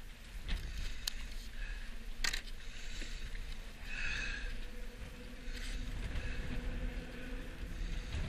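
A few sharp clicks and scrapes of metal fishing pliers and a jig being handled, over a steady low rumble of wind and water around a small boat.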